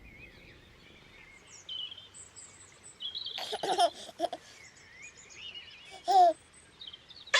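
Birdsong with many small warbling chirps, broken by short high-pitched vocal bursts, like laughing or babbling, in the middle and again about six seconds in.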